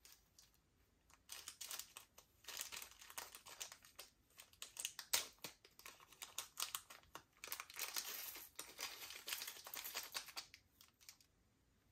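Slime being squished and kneaded by hand, a dense run of small crackling, clicking pops from trapped air. It starts about a second in and stops about a second before the end.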